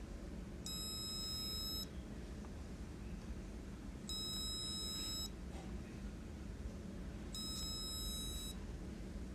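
An electronic beep sounding three times, each beep about a second long and about three seconds apart, over a low steady background hum.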